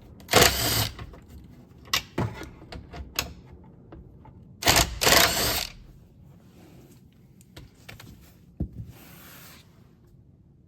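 A T40 Torx tool being worked on a car's dash screws and trim: scattered clicks and knocks, with two loud rasping bursts of about a second each, one near the start and one about five seconds in.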